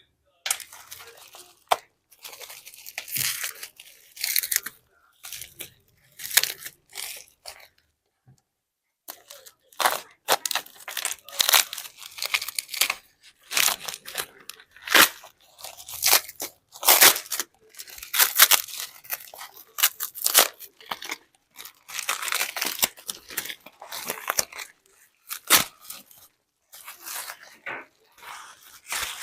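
Hand tools working on a badly cracked iPhone 11 Pro Max, giving irregular short scraping and crunching strokes with a brief pause about eight seconds in.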